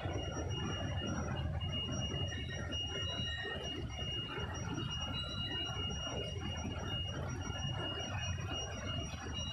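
Screw pre-chiller for poultry running, with a steady low churning of water agitated by the screw blades and air flow. Two faint, steady high-pitched whines sit over it.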